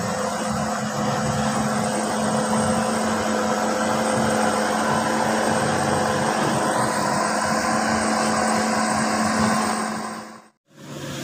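Heavy truck's diesel engine running steadily under load as it hauls an excavator on a lowboy trailer up a gravel road; the sound cuts out about ten and a half seconds in.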